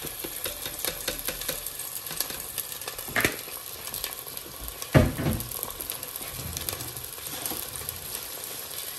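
Minced meat sizzling with onions in a frying pan while being stirred, with two louder knocks about three and five seconds in, the second the louder.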